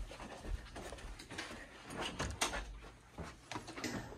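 Quick, irregular footsteps and rustling of people hurrying along a carpeted hallway.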